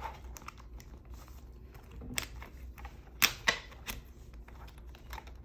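Paper planner pages being handled and pressed onto the metal discs of a disc-bound planner: scattered light clicks and snaps, with a few sharper clicks between about two and four seconds in.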